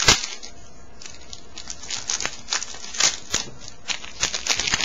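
Plastic trading-card pack wrapper crinkled and torn open by hand: a run of sharp crackles and snaps, with a loud snap right at the start and further bursts of crackling about three seconds in and near the end.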